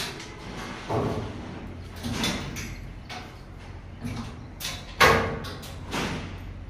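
The food cart's fold-down partition panels being lowered and shut: a run of about five knocks and bangs roughly a second apart, the loudest about five seconds in.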